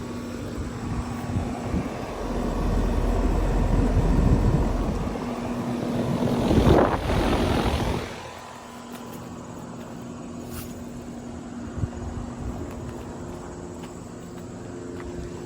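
Steady hum of an outdoor air conditioner unit running, with a loud rushing swell over it that builds for several seconds and drops off sharply about eight seconds in.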